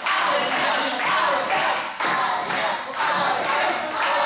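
Crowd clapping in a steady rhythm, about two claps a second, with many voices shouting over it.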